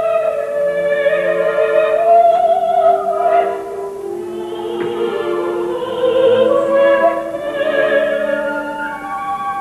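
Operatic singing: long held notes with a wide vibrato over sustained classical accompaniment.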